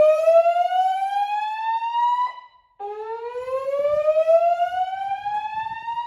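Gentex fire alarm speakers on a Notifier NFS2-3030 voice-evacuation system sounding the slow whoop tone. A rising sweep ends about two seconds in, then after a short break a second whoop climbs steadily through the rest.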